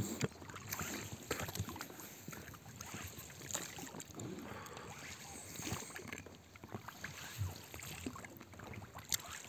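An inflatable rowing boat being rowed: oars dipping and pulling through the water with light splashing, and occasional small knocks.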